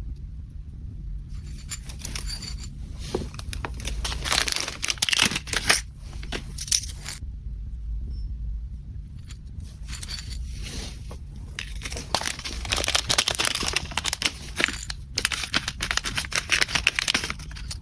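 Gift packaging being handled: crinkling and tearing of wrapping material in irregular bursts, over a steady low hum.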